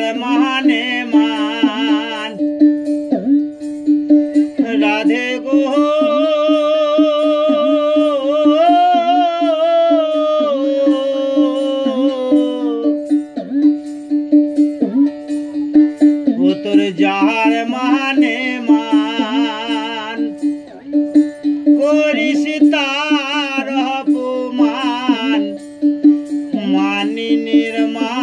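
Background music: a steady drone under a melody line that wavers in pitch.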